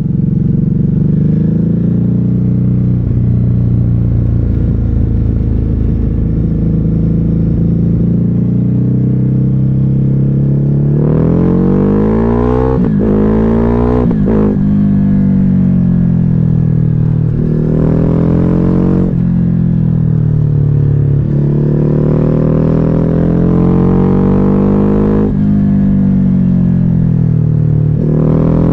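Ducati Hypermotard 950's L-twin through a Termignoni exhaust with the dB killer removed, loud and raw. It holds a steady note for about the first ten seconds, then climbs in revs again and again, each climb cut off by a sharp drop in pitch as it accelerates and changes gear.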